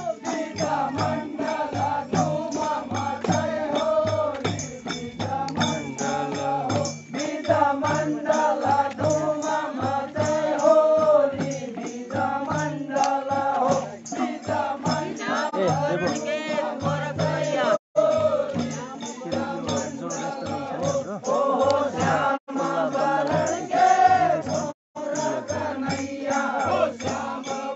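Group of men singing a Kumaoni Holi song together in chorus, with a regular drum beat under the voices. The sound drops out briefly three times in the second half.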